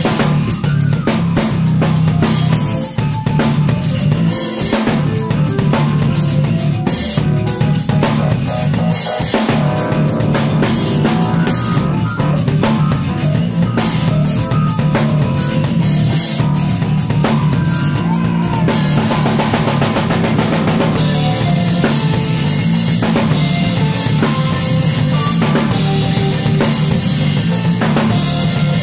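Live band playing instrumental music: a busy drum kit with many snare and kick hits over a steady electric bass line. About two-thirds of the way through, the cymbals open into a continuous wash.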